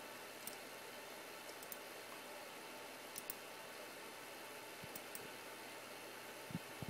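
Steady faint hiss of room tone, with a few faint scattered clicks and two soft low thumps near the end.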